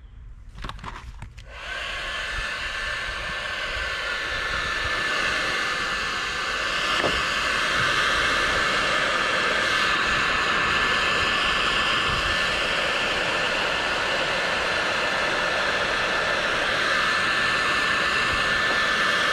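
Electric heat gun switched on about a second and a half in, then running steadily: a blowing fan with a thin steady whine, growing louder over the first several seconds. It is shrinking heat-shrink wire terminals.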